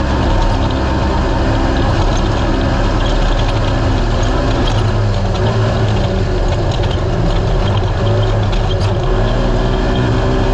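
A naturally aspirated race UTV's engine running hard. Its pitch dips and climbs again twice, around the middle and near the end, as the driver lifts and gets back on the throttle. Under it is a constant rush of wind and chassis noise, with a few scattered clicks and rattles.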